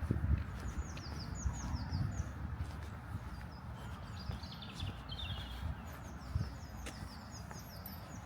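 Footsteps walking on a path, with birds singing nearby: runs of short, high, falling chirps near the start and again in the second half.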